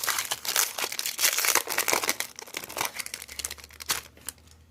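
Foil wrapper of a Pokémon trading card booster pack crinkling as it is torn open by hand, a dense crackling that thins out and stops shortly before the end.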